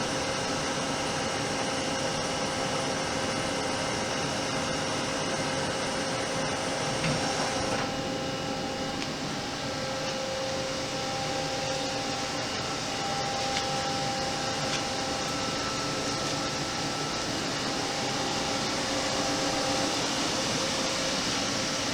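Hardinge Conquest T42 CNC lathe running: a steady machine whir carrying several constant whining tones. About eight seconds in, the highest whine drops away and the other tones shift, as the machine changes what it is doing.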